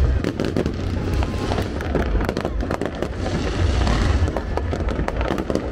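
Fireworks going off continuously: a dense run of sharp bangs and crackles over a low rumble.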